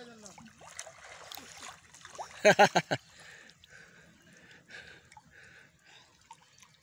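Muddy pond water sloshing and trickling around a man wading chest-deep as he hauls in a cast net. About two and a half seconds in comes a short, loud burst of a voice in several quick pulses.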